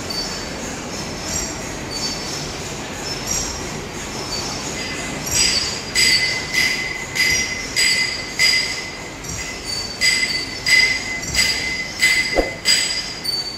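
Heavy-duty lathe cutting a large cast workpiece. The tool squeals and hisses in regular pulses about one and a half times a second, one with each turn of the workpiece, over the steady running of the machine. The pulses grow much louder about five seconds in.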